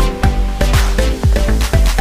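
Background music with a steady kick drum, about two beats a second, over sustained synth-like notes.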